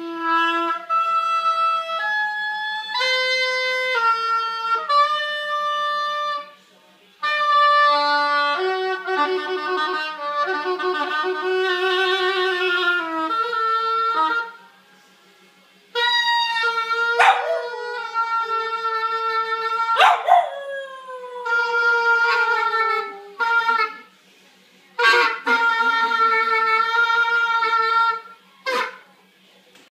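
Oboe playing a string of held notes with short pauses, while a puppy howls along, its wavering howl following the oboe's pitch. About 17 and 20 seconds in there are two sharp yelps.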